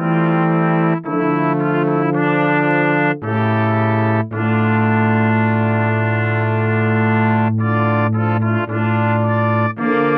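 Brass quintet playing slow held chords, trumpets over a low brass bass line, the chord changing every one to three seconds with short breaks between phrases.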